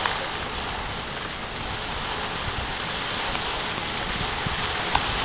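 Heavy rain pouring down onto floodwater, a steady hiss with no let-up, with one sharp tick near the end.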